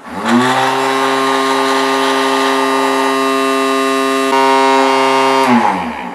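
Small electric motor of a homemade coffee grinder spinning up, running at a steady hum for about five seconds, then winding down to a stop.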